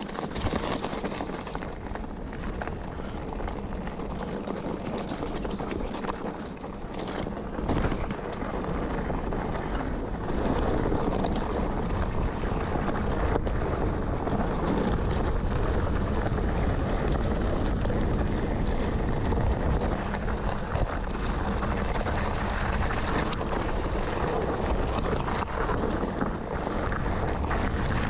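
Mountain bike riding down a steep, rocky slope, heard from an on-board camera: wind on the microphone and tyres rolling over stones, with many small knocks and rattles from the bike over the bumps. It gets louder about ten seconds in.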